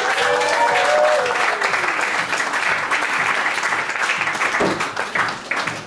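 Comedy club audience applauding, with the clapping dying away near the end.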